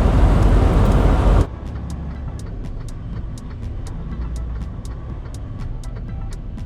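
Loud truck engine and road rumble heard from inside the cab, cutting off abruptly about a second and a half in. It gives way to a quieter low hum with a sharp, regular ticking about twice a second.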